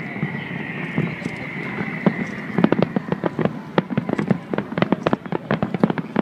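Fireworks display: a steady high whistle for the first two seconds or so, then a quick run of sharp bangs and crackles, several a second.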